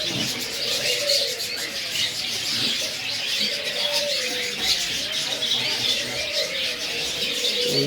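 Many small birds chirping at once in a dense, continuous chorus, with low cooing underneath.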